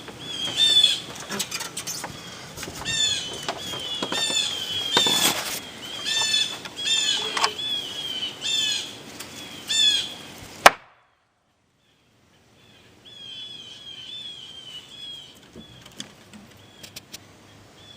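Blue jays screeching over and over with harsh, hooked calls. About ten and a half seconds in, a single loud sharp crack cuts them off, and all goes quiet for about two seconds. Then fainter jay calls start up again.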